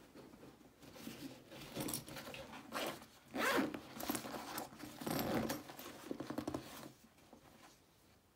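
The zipper of a Fjällräven Kånken canvas backpack being pulled in several rasping strokes, with the fabric handled between them.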